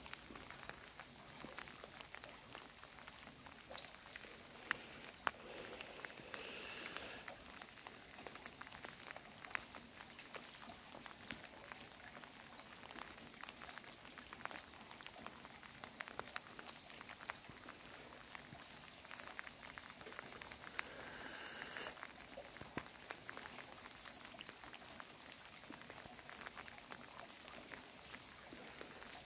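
Rain falling, with many individual drops ticking sharply on nearby surfaces over a steady hiss.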